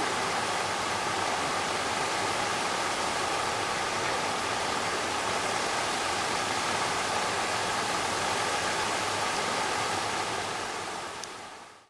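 Paddlewheel aerator running, its paddles churning and splashing pond water in a steady rush, fading out near the end.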